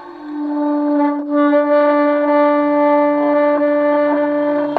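Sustained, horn-like drone of several steady held tones stacked into a chord. It swells in just after the start, and a deeper tone joins about halfway through.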